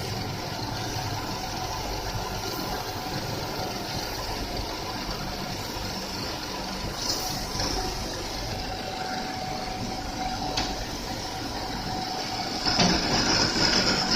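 CNC teeth-grinding machine for peeler blades running: a steady mechanical hum under a hiss, with a couple of short clicks, getting louder and brighter near the end.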